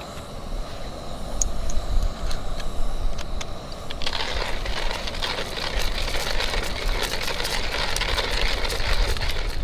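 Light clicks of coffee beans going into a hand coffee grinder. About four seconds in, the grinder is cranked, giving a dense, gritty crunching that carries on steadily.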